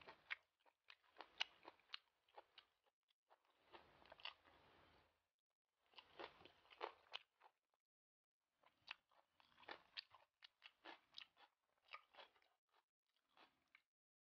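Crunchy chewing of a Thai-style squid salad with raw green vegetables: clusters of crisp crunches with short pauses between them.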